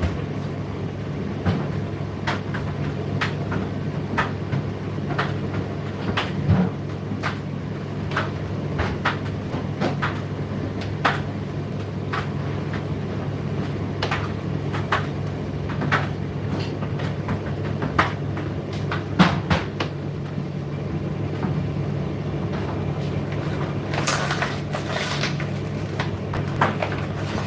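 Indesit IDC8T3 condenser tumble dryer running mid-cycle: a steady motor hum with irregular clicks and knocks of the load tumbling against the drum, about one or two a second.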